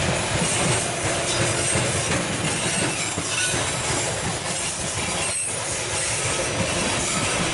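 Freight train of covered grain hopper cars rolling past at close range: a steady rumble of steel wheels on the rails, with a faint high wheel squeal now and then.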